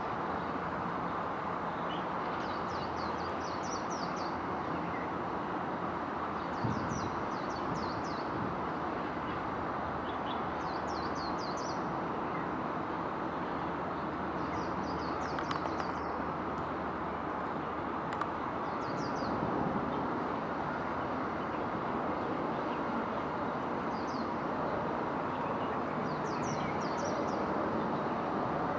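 A songbird repeats a short phrase of quick, high, falling notes every three to four seconds over a steady background rumble.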